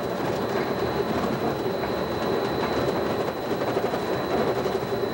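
Walt Disney World Mark VI monorail running steadily along its concrete beam, heard from inside the front cab: an even, continuous hum of the electric drive and rubber tyres, with a thin steady high tone.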